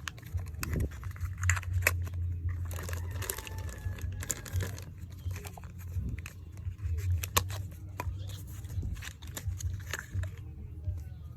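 Plastic packaging being handled and torn open by hand: crinkling and rustling, with a burst of tearing about three seconds in and many sharp clicks and taps of small items, over a steady low hum.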